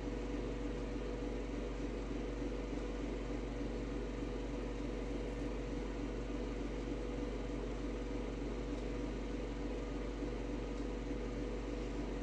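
Steady background hum with a few constant low tones and no other events: room noise from a running appliance or fan.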